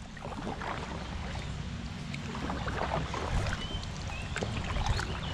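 Low, steady rumble of wind on the microphone out on the water from a kayak, with scattered small knocks and clicks of gear being handled and a few faint short chirps late on.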